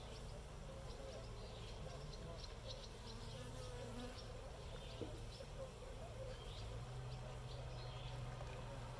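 Honeybees buzzing around the hive entrance: a faint, steady hum of wings as bees land and take off.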